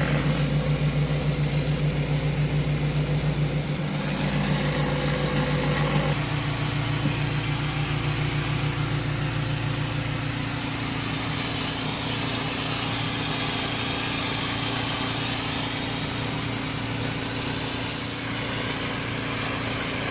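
Gas-engine pressure washer running steadily, with the high hiss of its spray jet on concrete swelling and fading. About six seconds in, the engine's note shifts.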